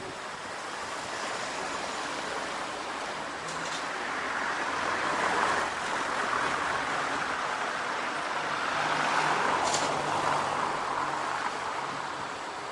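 Street traffic: passing cars, their tyre and engine noise swelling twice, about five seconds in and again around ten seconds.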